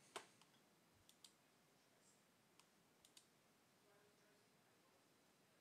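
Near silence broken by a few faint, short computer mouse clicks, the loudest just after the start.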